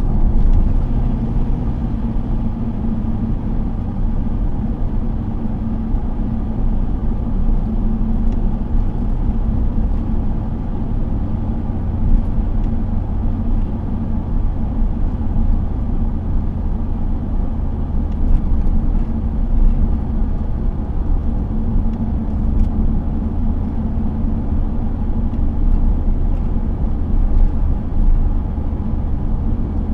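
Engine drone and tyre and road noise inside a car's cabin, driving at a steady speed.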